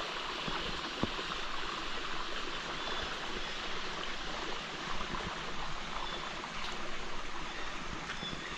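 River water running, a steady rushing hiss, with a sharp click about a second in.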